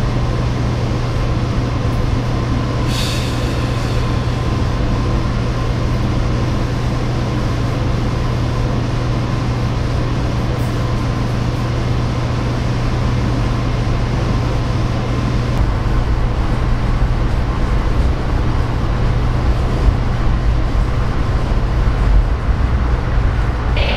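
Steady rumble and rush of a passenger train running at speed, heard from inside the coach, with a constant low hum, while freight cars pass close alongside on the next track. A brief high-pitched sound comes about three seconds in.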